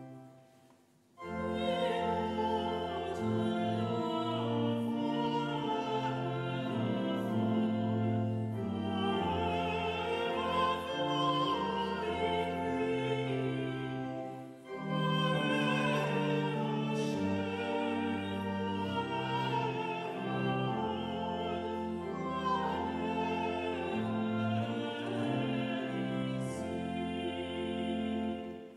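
Church choir singing a classical sacred piece with organ accompaniment. It starts about a second in and breaks off briefly about halfway through.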